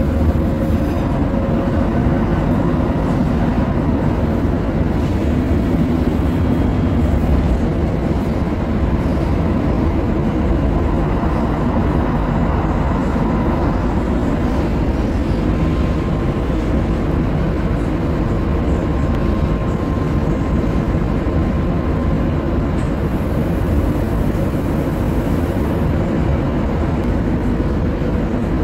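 Older Cologne Stadtbahn railcar running, heard from inside the passenger compartment: a steady, loud rumble of wheels on rails and running gear, with a faint whine that comes and goes.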